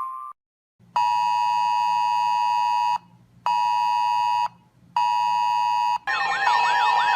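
Weather alert radio alarm going off: three loud, steady electronic two-tone beeps, then from about six seconds in a fast repeating warbling siren-like alarm, the sign of an incoming severe weather warning.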